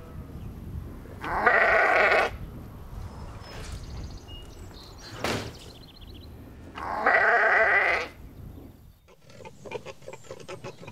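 Sheep bleating twice, each call about a second long.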